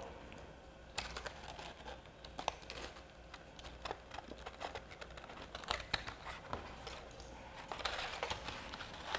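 Faint rustling and small clicks of paper and cardstock being handled, as paper wings are slotted onto the sides of a folded papercraft macaw, with a denser patch of rustling near the end.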